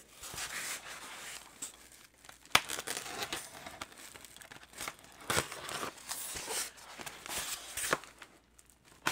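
Packaging being opened by hand: rustling, scraping and tearing, broken by three sharp knocks.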